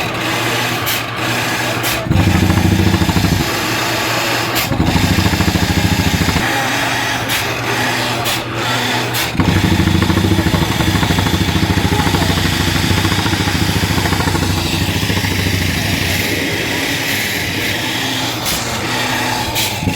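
Borewell drilling rig's engine running, getting louder and heavier in stretches, the longest from about halfway in, with a few sharp knocks.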